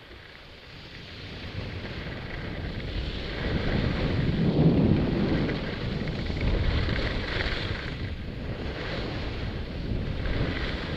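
Wind rushing over a helmet-mounted camera's microphone while skiing downhill, mixed with the hiss and scrape of skis on icy, freshly groomed snow. It grows louder over the first few seconds, then swells and eases with the turns.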